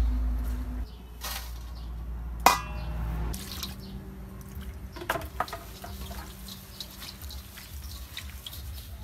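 Kitchen sounds of vegetables being prepared: water, and a single sharp ringing clink against the stainless steel colander about two and a half seconds in. After that come scattered small clicks and rustles as hands work through leafy greens, over a steady low hum.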